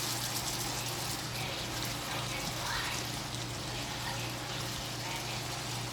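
Water running steadily, with a low steady hum beneath it.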